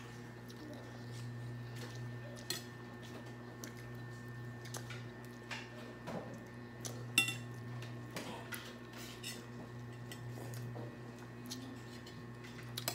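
Spoons and forks clinking against glass bowls during a meal, in scattered single clicks, with one sharper clink about seven seconds in. A steady low hum runs underneath.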